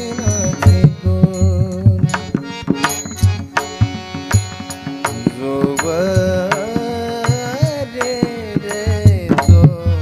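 Marathi kirtan music: a man's sung melody with wavering, ornamented notes over harmonium, with deep pakhawaj drum strokes and sharp high clicks keeping the beat.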